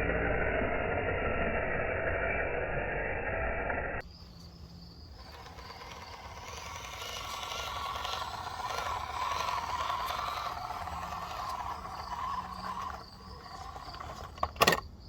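Electric motor and geared drivetrain of an FMS Atlas 6x6 RC truck running steadily for about four seconds. The transmission had already been making noise, and the owner is running it until it stops. The sound then cuts off abruptly to crickets chirping steadily, with a fainter mechanical sound swelling and fading and a sharp click near the end.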